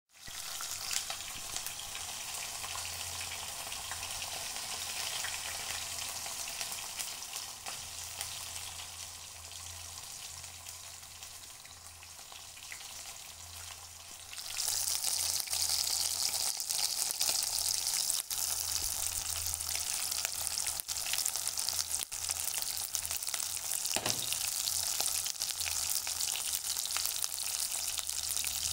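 Steady hissing noise over a low hum, with scattered faint clicks; the hiss grows louder about halfway through.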